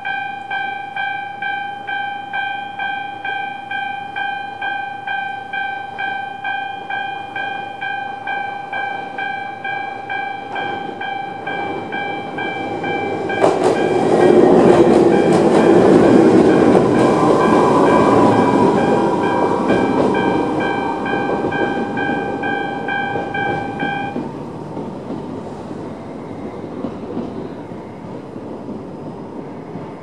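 Electronic level-crossing bell of the high-pitched 'Mizuma' type, ringing in a steady repeated ding. About halfway in, a Toyama Chihō Railway 17480-series electric train runs over the crossing, loud, with its wheels clattering over the rail joints. The bell stops a few seconds after the train has passed.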